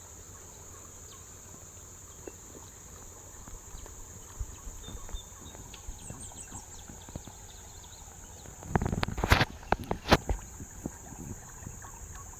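Steady high-pitched insect drone, with a short cluster of loud knocks and rustling thumps about nine to ten seconds in.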